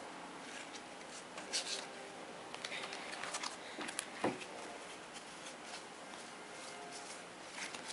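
Faint rustling and light taps of game cards being handled and sorted on a table, a few louder rustles about a second and a half, three and four seconds in.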